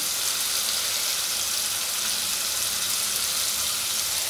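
Chicken masala in oil and spices sizzling steadily in a saucepan over a gas flame, an even hiss.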